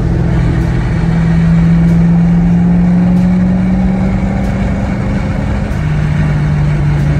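Corvette C6's V8 engine droning inside the cabin while driving. Its pitch climbs slowly for a few seconds, then drops to a lower, steady pitch about six seconds in.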